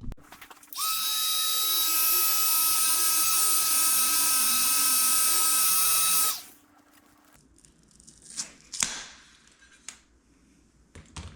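Heat gun running for about five seconds, a steady fan whine over the rush of air, then switched off; a few light handling clicks and knocks follow.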